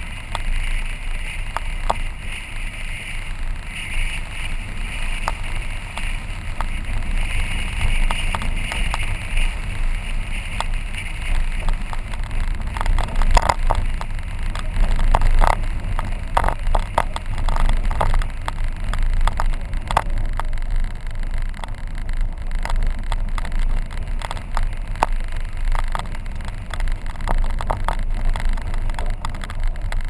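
Car driving along a gravel dirt road: a steady low rumble of tyres and wind, with scattered clicks and knocks from stones and bumps under the wheels, busiest about halfway through. A higher hiss sits over it for roughly the first third, then fades.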